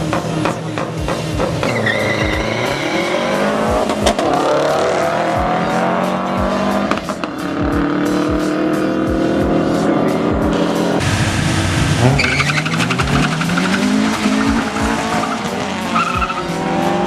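Cars accelerating hard in a street race, engines revving up with rising pitch and dropping back at each gear shift, with brief tire squeals. A track with a steady beat plays underneath.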